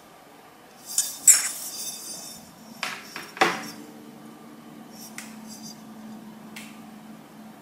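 Stoneware dishes clinking and knocking against each other and the table as they are handled: two sharp clinks with a short ring about a second in, the second the loudest, then three more a little before and after three seconds in, and a couple of faint ticks later.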